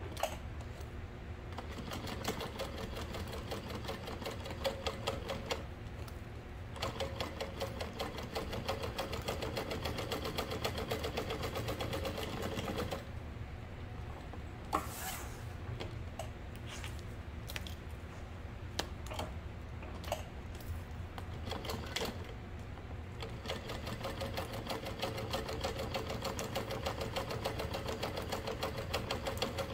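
Industrial straight-stitch sewing machine running a seam through thick vinyl, with fast, even stitching. In the middle it goes quieter for a while and is broken by separate clicks, then picks up again to steady stitching.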